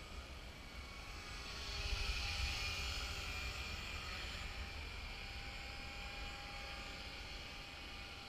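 Electric Align T-Rex 450 RC helicopter flying: a steady high whine of its motor and rotor blades, growing louder about two seconds in as it comes nearer and then easing off, with a low rumble underneath.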